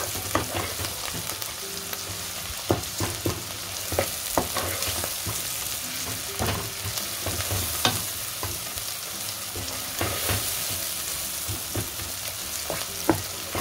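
Sliced onions and ginger-garlic paste sizzling in ghee in a non-stick pot while being browned. A wooden spoon stirs them, with irregular scrapes and taps against the pan.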